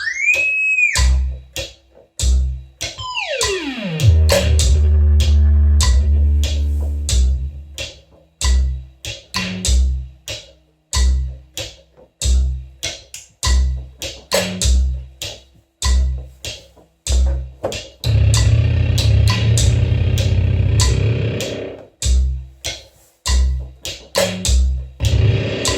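Music with a steady thumping beat, roughly one low thump a second, under plucked guitar. Near the start a note bends up. About three seconds in, a note dives down in pitch into a long, low sustained chord, and a second dense sustained passage comes in the second half.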